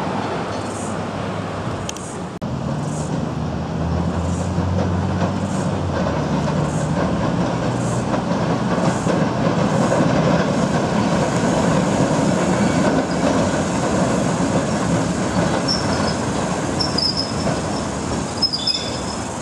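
Vintage Sydney electric tram running on its track, a steady rumble that builds as it draws near, with short high-pitched wheel squeals near the end.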